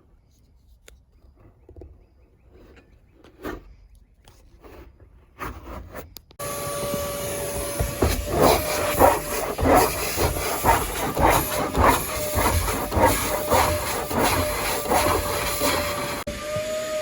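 Faint clicks and rustling, then about six seconds in a small motor starts suddenly: a steady whine over loud rushing air, with repeated surges as it works, until it drops back near the end.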